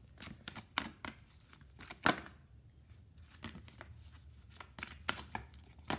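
A deck of oracle cards being shuffled and handled by hand: an irregular string of crisp snaps and slaps of card on card, the loudest about two seconds in.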